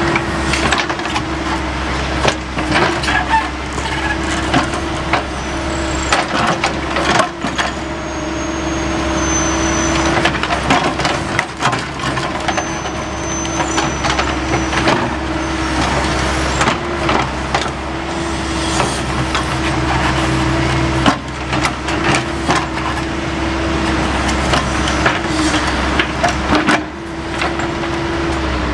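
Caterpillar backhoe loader's diesel engine running steadily under load with a constant whine, while its bucket digs and wood roots crack and knock again and again.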